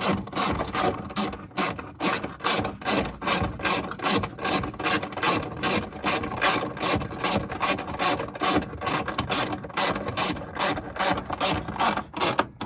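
Hand ratchet clicking in quick, even strokes, about four or five clicks a second, as a fastener holding a rear wheel well liner is turned down.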